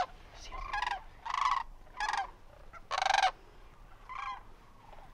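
Sandhill cranes calling as they come in: a series of about five short rolling calls, roughly a second apart, the loudest about three seconds in.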